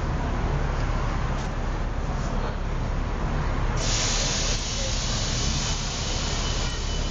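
Steady street traffic rumble, with a loud hiss starting abruptly about four seconds in and holding for a couple of seconds.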